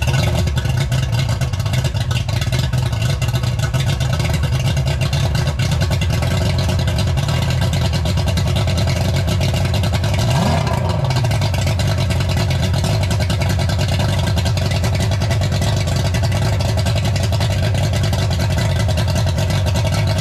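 Mercury Pro Max two-stroke V6 outboard idling while flushed on a garden hose, with one short blip of the throttle about halfway through.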